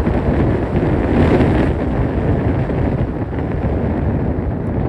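Wind rushing over the microphone together with road noise from a car driving at speed, a steady rumbling rush.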